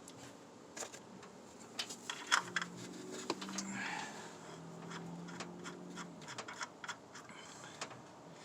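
Scattered clicks, taps and light scraping of hands working on the brake master cylinder fittings and vacuum hose under a truck's hood, loudest a couple of seconds in.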